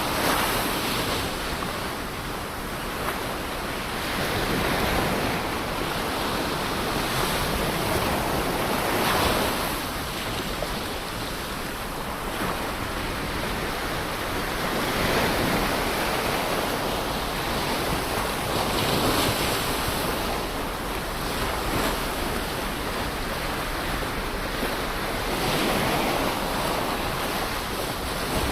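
Ocean waves breaking on a shore, a steady wash of surf that swells as each wave comes in, about every four seconds.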